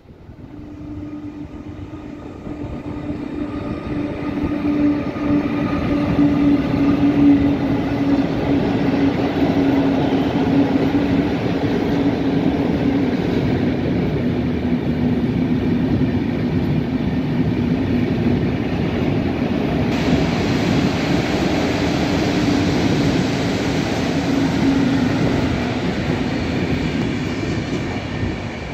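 PKP Intercity passenger train hauled by an EU160 electric locomotive passing close by. The rumble of wheels on the rails grows as it approaches, holds steady while the coaches roll past with a steady hum, and fades near the end as the train draws away.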